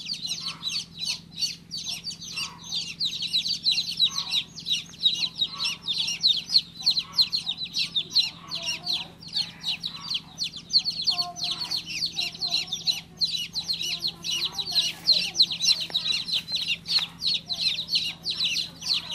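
Baby chicks peeping without pause: a dense stream of short, high chirps, several a second and overlapping, over a steady low hum.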